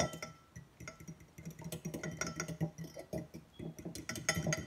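A metal fork clinking and scraping against a ceramic bowl in quick, irregular strokes as egg mixture is whisked. The clinks are loudest at the start and again near the end.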